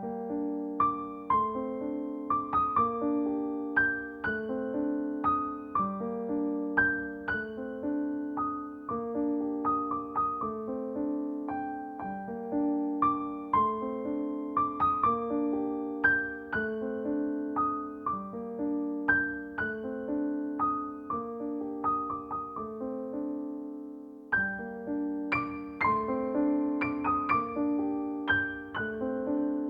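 Calm background piano music: a gentle melody of single notes over repeating chords, with a brief pause about three quarters of the way through before it carries on.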